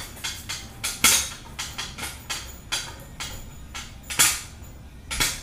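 Hydraulic floor jack being pumped by its long handle: a string of short metallic clicks and knocks, with louder clunks about a second in, about four seconds in and near the end.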